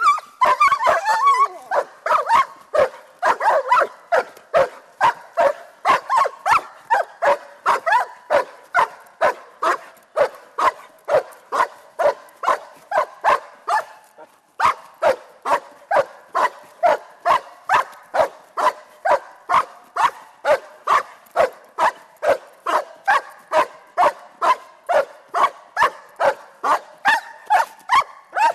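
Young German shepherd barking steadily at the helper during protection-work agitation: a dense flurry in the first second or so, then regular barks about two a second, with one short break about halfway.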